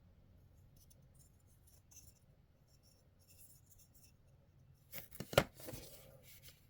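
Small plastic action-figure accessories being handled: faint rustling, then a few sharp plastic clicks and taps about five seconds in.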